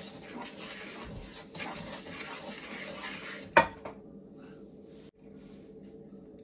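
Wooden spatula stirring and scraping dry semolina around a nonstick wok: a gritty rustle with repeated scrape strokes. A little past halfway comes a single sharp knock, and the stirring stops.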